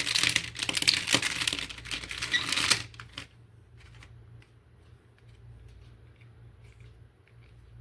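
Dense crackling and clicking of a toy and its plastic packaging being handled for about the first three seconds, then only faint scattered clicks over a low steady hum.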